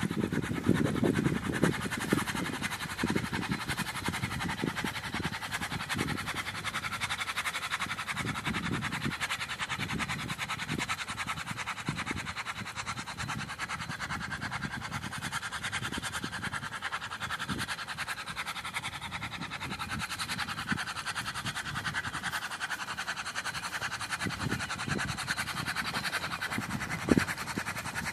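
Allis-Chalmers WC tractor being towed in gear, its unfired four-cylinder engine turned over by the driveline, together with the towing SUV's engine: a steady mechanical noise with uneven low rumbling, and a single knock near the end.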